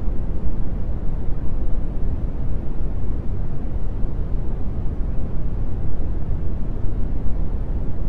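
Steady brown noise: an even, deep rushing hiss with most of its strength in the low end, fading toward the highs, unchanging throughout.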